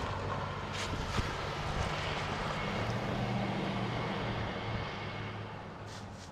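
A distant engine droning steadily over an outdoor noise haze, fading away near the end.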